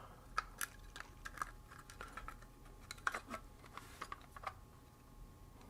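Irregular light clicks and taps of a guitar fuzz pedal and its small parts being handled and turned over on a workbench during disassembly. The clicks come thickest in the first few seconds and thin out near the end.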